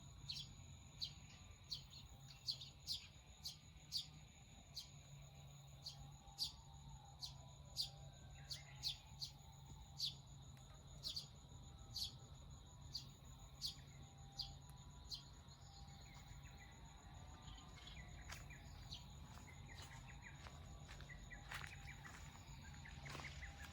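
Forest birdsong: one bird repeats a short, high chirp that falls in pitch, about two a second, and near the end softer, varied calls from other birds take over. A faint low hum runs under it.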